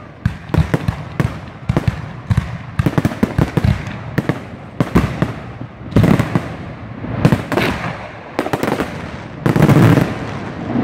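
Aerial fireworks display: a rapid, irregular run of sharp bangs from bursting shells, several a second, with the loudest, heaviest boom near the end.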